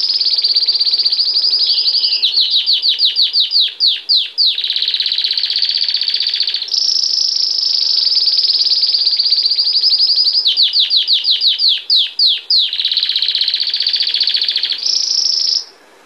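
Belgian canary singing a long, loud song of fast rolling trills. Twice it breaks into a run of separate, slowing notes that each sweep downward, then returns to trilling. The song stops abruptly just before the end.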